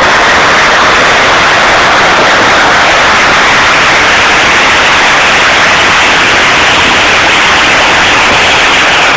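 Zetor 6341 Super tractor's diesel engine working under load at close range while its front loader pushes stones, so loud that it comes through as a steady, distorted noise with no clear pitch.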